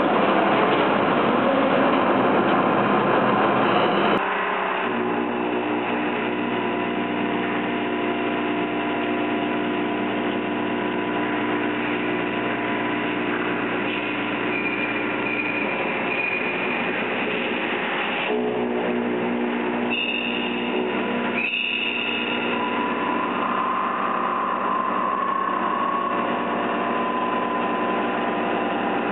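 Metal cutting on machine tools. For the first four seconds or so there is the dense, noisy rasp of a tool turning a large steel ring. Then a 5-axis machining centre face mills steel blocks with a 50 mm face mill: a steady cutting sound with several held tones that shifts at about 18 and 21 seconds.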